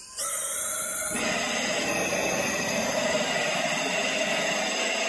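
Propane torch burning with compressed air blown into it: a steady rushing hiss that starts just after the air valve is opened and grows louder and fuller about a second in, as the flame turns blue and concentrated.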